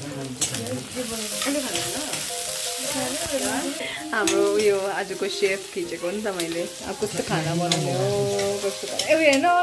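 Sliced onions sizzling in hot oil in a wok, a steady hiss. From about four seconds in, voices rise and fall over the sizzle.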